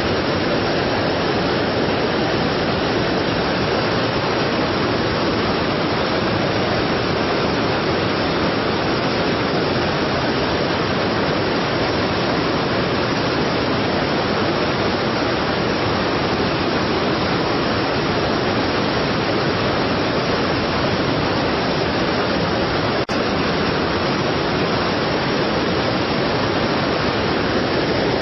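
Strong waterfall: a steady, dense rush of falling water with no change in level, broken only by a single brief click about 23 seconds in.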